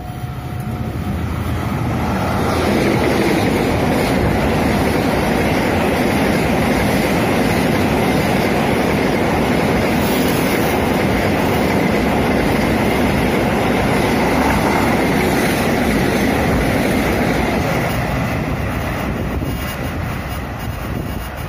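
A train passing close by, the wheels running over the rails: the noise swells about two seconds in, holds steady for some fifteen seconds and fades near the end.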